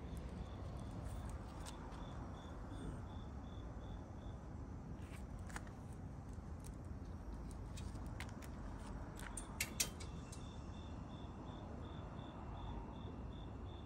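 Insect chirping at an even pace of about three chirps a second, stopping about four seconds in and starting again about ten seconds in, over a low steady rumble. Scattered sharp clicks fall in the gap, the loudest a pair about ten seconds in.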